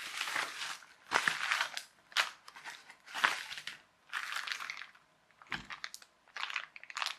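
Plastic packaging of small parts handled in a series of short rustling bursts, about five in the first five seconds, followed by a few lighter clicks near the end.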